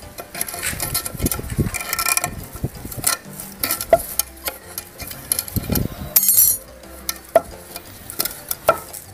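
Thin wire being twisted by hand and scraped against a wooden plank: irregular scratching and small clicks, with a few light knocks on the wood.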